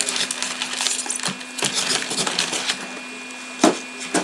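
Trading cards and their packaging being handled: quick crackles and rustling, with one louder knock near the end.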